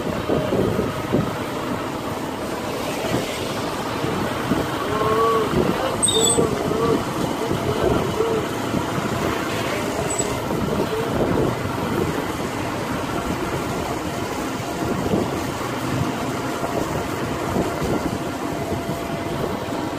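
Riding noise inside a moving enclosed electric tricycle: the cabin rattles and rumbles over a wet road with wind noise, under a faint steady whine. A few short voice sounds come through about five to seven seconds in.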